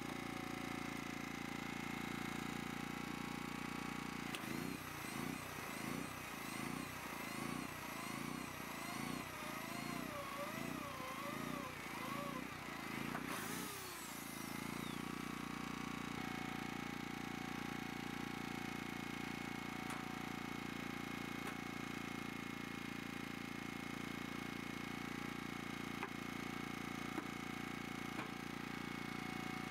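Ryobi 1100 W portable generator running steadily. From about four seconds in, for some ten seconds, an electric drill bores through the sheet-steel chimney cap with a wavering whine, then stops. Near the end a hand pop-rivet gun gives a couple of sharp clicks.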